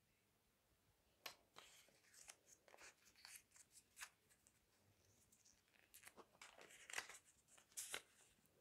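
Faint rustling and crackling of a small paper slip being folded by hand, in two short spells with a few light ticks among them.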